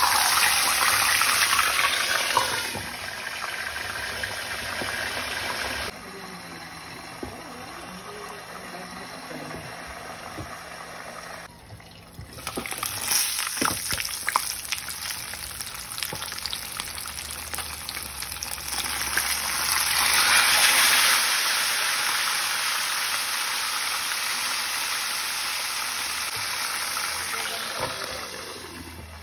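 Whole tilapia frying in hot oil in a pan: a loud, steady sizzle as the fish goes in that settles down after a few seconds, breaks off briefly about twelve seconds in, then swells again and eases toward the end.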